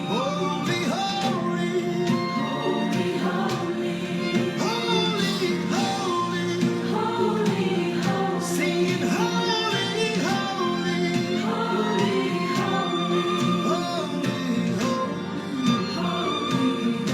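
Gospel music with a choir singing over steady instrumental backing.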